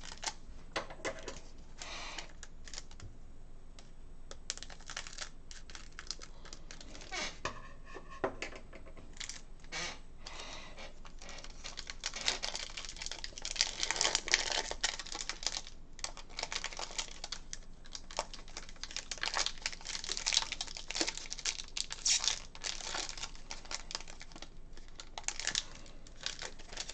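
Foil wrapper of a Topps Chrome trading card pack crinkling and tearing as it is opened, with the stiff chrome cards clicking and sliding against each other as they are handled. Irregular runs of crackles, busiest in the middle and near the end.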